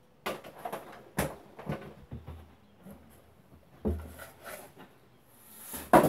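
Handling noise from the speaker tower's tall packaging tube being lifted and tipped: a string of knocks and rustles, with low thumps about two and four seconds in. A rising rustle ends in the loudest knock near the end.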